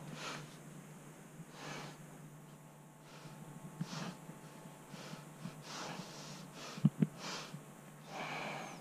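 A person breathing heavily through the nose close to the microphone, a breath about every one and a half seconds, over a steady low hum. Two quick knocks about seven seconds in are the loudest sounds.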